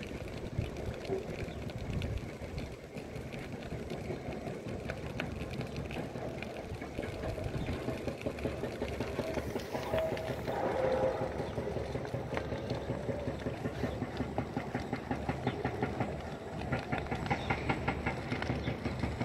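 Dry bush burning, with dense, continuous crackling.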